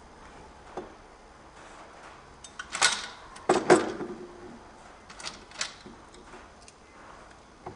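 Scattered clanks, clicks and rattles of wagon parts and tools being handled during assembly of a steel-and-wood wagon. The loudest knocks come near the middle, one of them ringing briefly like struck metal.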